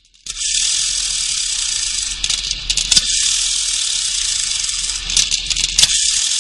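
A loud, steady high hiss with a few sharp crackles scattered through it, starting abruptly about a quarter second in.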